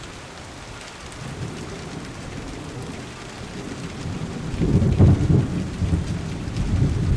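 Rushing muddy floodwater: a deep, rumbling noise that builds from about a second in and turns loud about four and a half seconds in.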